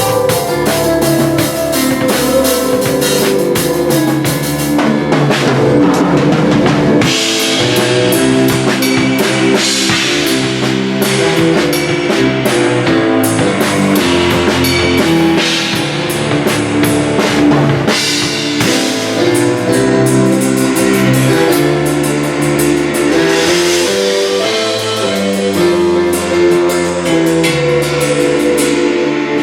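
Drum kit with many cymbals jamming along with a keyboard playing chords and a moving bass line; the keyboard is the loudest part and the drums sit back in the mix.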